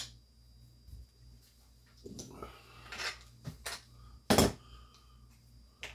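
Small diecast metal parts knocking and clinking on a wooden board as they are handled and set down: a sharp click at the start, some handling noise, and a louder knock about four seconds in.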